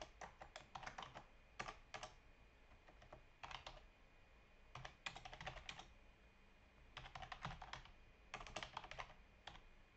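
Faint computer keyboard typing in about six short runs of keystrokes, with pauses of a second or so between the runs.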